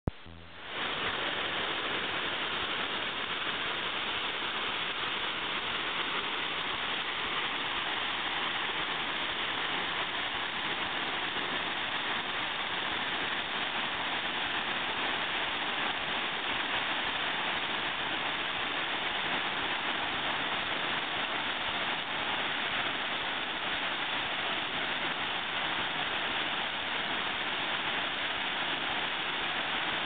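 Steady rush of a waterfall plunging into a pool, an even wash of falling water that fades in within the first second and then holds constant.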